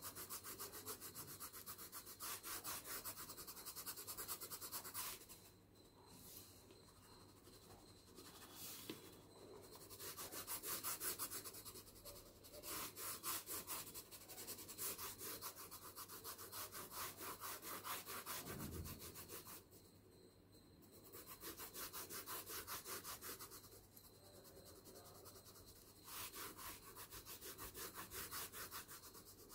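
Graphite pencil shading on drawing paper: quick back-and-forth strokes of the lead rubbing the paper, stopping briefly a few times.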